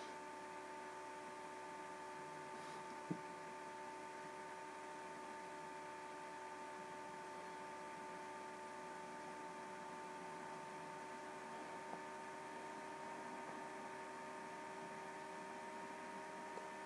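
Faint steady electrical hum made of a few fixed tones over a low hiss, with one faint click about three seconds in; no sound of the fishing itself comes through.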